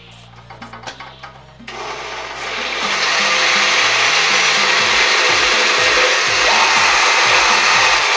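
Countertop blender switched on about two seconds in, coming up to full speed by about three seconds and then running loud and steady as it purées cooked red beans with whole milk.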